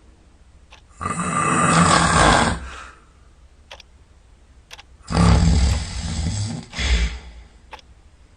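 Snoring during sleep: two loud, rasping snores about four seconds apart, each lasting a second and a half or more, with quiet breathing between.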